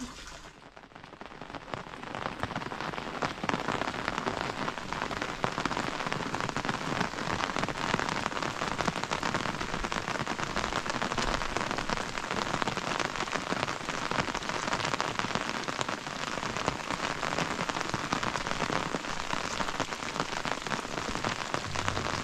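Steady rain falling, a dense hiss of many small drop impacts; it rises from quiet over the first few seconds and then holds steady.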